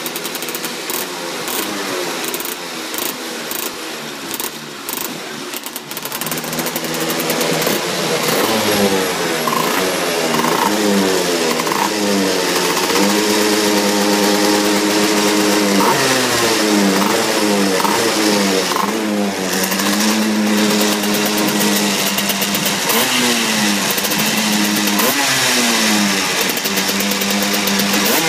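TM K9C 125 cc KZ two-stroke kart engine being warmed up. For the first few seconds it runs unevenly with loud irregular pops, then it is revved repeatedly, the pitch rising, holding and dropping back every few seconds.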